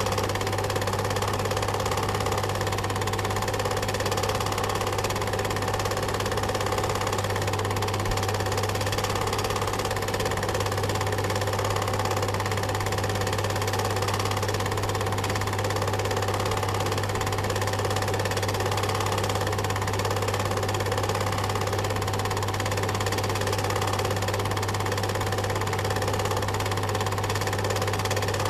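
Cine film projector running steadily, a continuous mechanical whirr over a low steady hum.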